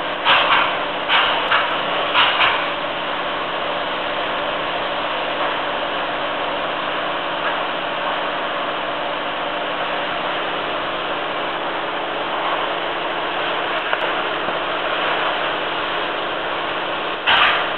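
Polyurea spray rig running: a steady hiss over a machine hum. A run of short, sharp bursts comes in the first couple of seconds and again near the end.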